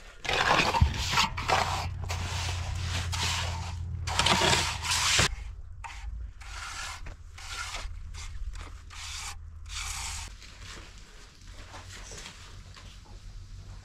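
Shovels scraping through gravelly earth, then a trowel scraping wet cement, in a series of short scraping strokes. A low steady hum lies underneath, and the strokes thin out in the second half.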